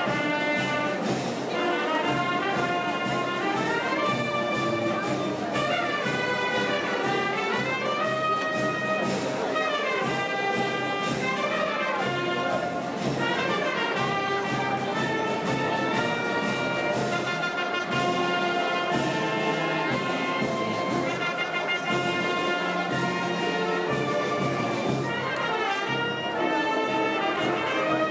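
Brass band music, with trumpets and trombones carrying a continuous melody.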